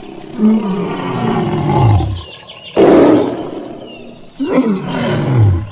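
A large wild animal roaring: two long roars that fall in pitch, with a loud harsh burst between them about three seconds in.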